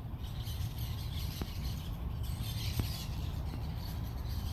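Outdoor background noise: a steady low rumble with a faint hiss over it, and two faint clicks about a second and a half apart.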